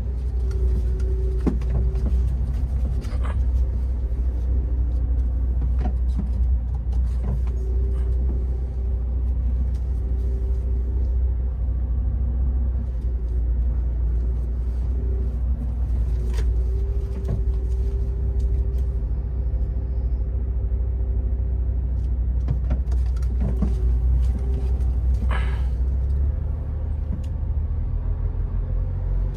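MAN TGX truck running on the road: a steady low engine and road drone with a faint on-and-off whine and a few light clicks. The low drone eases near the end.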